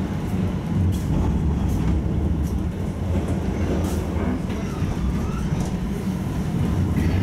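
Steady low rumble of a tram running, heard from inside the car, with a few faint clicks over it.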